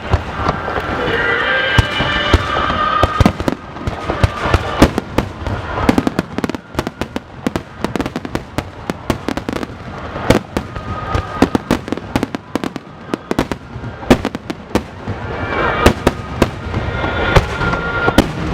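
Starmine fireworks barrage: a dense, rapid string of shell bursts and crackling reports, thickest through the middle. Wavering high-pitched tones sound near the start and again near the end.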